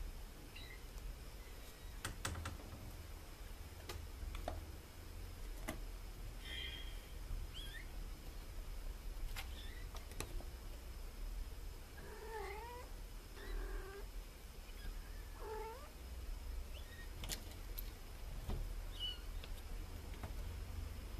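Kittens mewing: short, high-pitched calls scattered through, with a run of several meows about twelve to sixteen seconds in. A few light taps or clicks fall between the calls.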